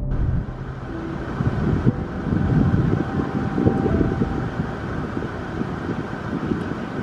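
Wind buffeting the microphone: a loud, dense low rumble that rises and falls unevenly.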